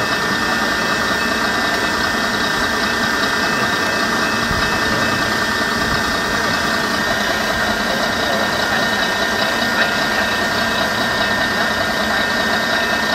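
A steady mechanical running noise, like a motor, with several held tones and no change in level or pitch.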